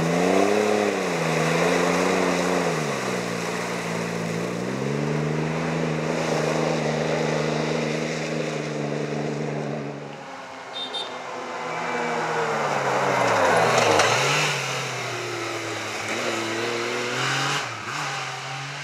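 Off-road rally truck's engine revving as it works through deep mud, the pitch rising and falling with the throttle. About ten seconds in another rally vehicle's engine takes over, growing louder as it approaches and loudest about fourteen seconds in.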